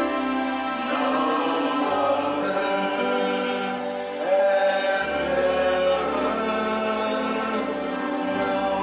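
Slow worship music: a group of voices singing over held chords, with the bass note changing every second or few seconds.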